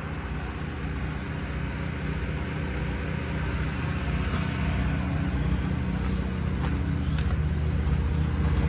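A large engine running steadily, growing slowly louder, with a few faint clicks about halfway through.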